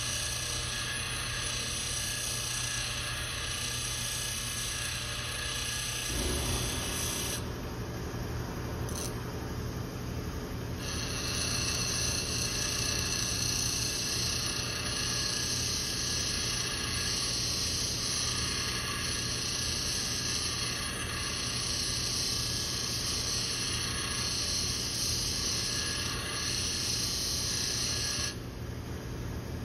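Bench grinder running with a steady motor hum while the tip of a flat-blade screwdriver is pressed against the spinning wheel. The steel grinds with a hissing rasp as the tip is dressed square with a slight convex shape. The grinding eases for a few seconds about a quarter of the way in, runs hard through the middle, and stops shortly before the end as the tool comes off the wheel.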